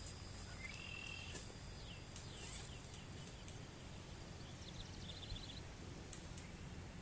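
Tropical forest ambience: insects drone steadily at a high pitch while birds give a few short calls. A brief chirp comes about a second in, sweeping whistles follow a couple of seconds in, and a quick trill comes after about five seconds.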